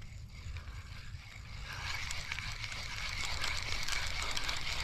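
Spinning reel cranked to retrieve a cast lure: a whirring with fine rapid clicking that starts about two seconds in and grows louder, over a low wind rumble on the microphone.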